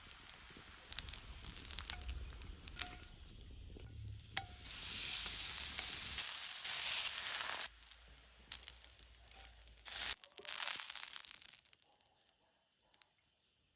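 Food frying in hot oil in a pan, a steady sizzle with light clicks of a utensil. The sizzle swells loudly twice and falls away near the end.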